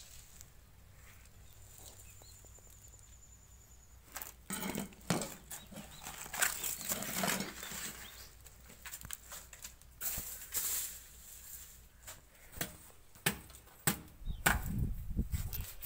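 Palmyra palm fruits being cut with a billhook knife: irregular sharp chops into the fruits' fibrous husks, mixed with rustling and scraping as the husks are handled. It starts quiet and the chopping picks up after about four seconds.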